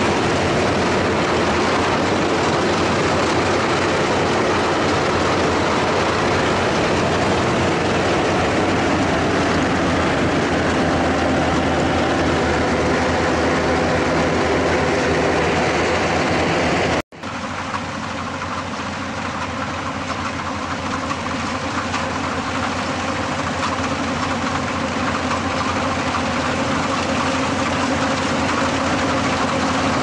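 Yanmar AW82GV rice combine harvester running steadily while cutting and threshing rice, its engine and machinery making a loud, continuous mechanical noise. Just over halfway through the sound drops out for an instant; after that it is somewhat quieter and slowly grows louder again.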